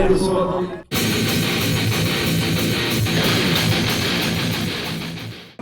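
Music with strummed, distorted electric guitar, cutting in suddenly about a second in and fading out near the end. Before it, a moment of voices.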